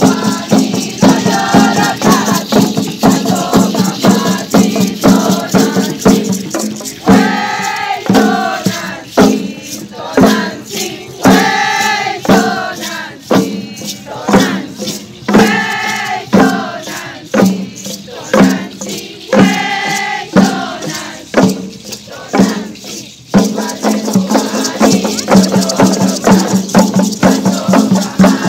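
Hand rattles shaken in a fast, steady rhythm with hand drums, and a group of women singing a ceremonial chant in long, wavering notes from about a quarter of the way in to about three-quarters through.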